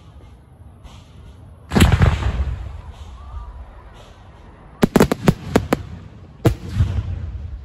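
Fireworks exploding: one heavy bang about two seconds in with a long rolling rumble after it, then a quick string of about six sharp cracks around five seconds in, and another heavy bang soon after.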